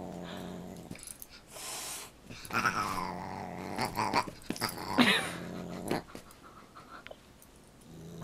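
Large dog growling in rumbling stretches during rough play with a cat, with two louder calls that rise and fall in pitch, about two and a half and five seconds in.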